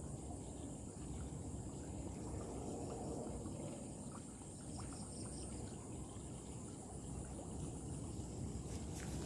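Steady low rumbling noise under a constant high insect chorus, with a few faint clicks near the end.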